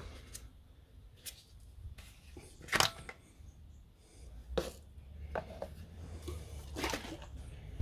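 Oil filler cap being twisted off the top of a car engine and set down on the engine's cover: a few separate sharp clicks and knocks, the loudest about three seconds in.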